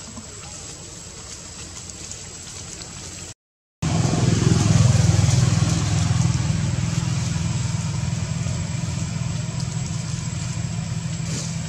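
A steady low hum of an idling engine. It cuts in abruptly after a brief dropout about three and a half seconds in, over fainter outdoor background before that.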